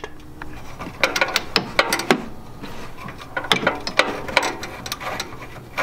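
Ratchet wrench clicking in two quick runs, about a second in and again about three and a half seconds in, as the nuts on an exhaust downpipe flange are backed off.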